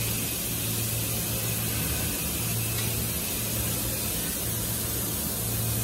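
Steady ambient noise of a metal fabrication workshop floor: an even hiss with a constant low hum underneath.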